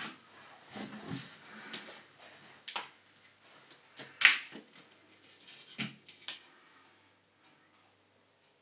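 Light handling noises: a scatter of small clicks and taps, the sharpest about four seconds in, dying away after about seven seconds.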